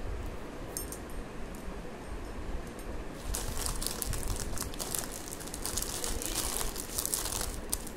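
Clear plastic wrapping crinkling and crackling as a bangle is pulled out of it, a dense crackle through most of the second half. A light click about a second in.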